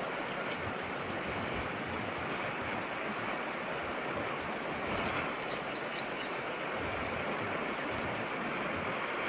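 Steady rushing outdoor noise of wind and surf on a nest-camera microphone, with a few faint high chirps a little over halfway through.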